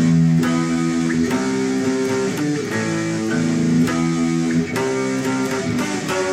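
Guitar playing an intro riff of ringing power chords, changing chord about every second, with a chord sliding down in pitch partway through.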